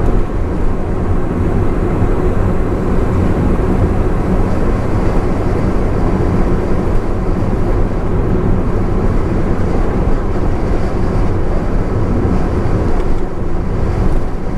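Steady drone of a Honda S660 at expressway speed, heard from inside the cabin: tyre and road roar mixed with the small mid-mounted three-cylinder engine running at an even cruise.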